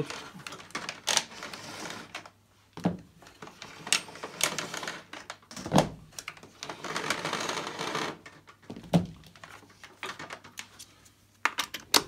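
Power cord of a Hoover Turbomaster upright vacuum being unwound by hand: the flex rustles and slides against the plastic body, with scattered clicks and knocks, the sharpest about six seconds in. A quick run of clicks near the end comes as the plug goes into the wall socket.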